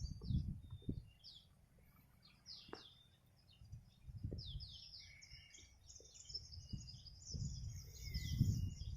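Small birds chirping in many quick, high-pitched notes, busiest in the second half, with a low rumble at the start and again near the end.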